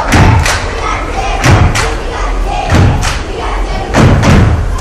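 A group of children stomping in unison on a wooden stage in a stepping routine: heavy stomps in pairs, about one pair every second and a quarter, with a crowd of voices underneath.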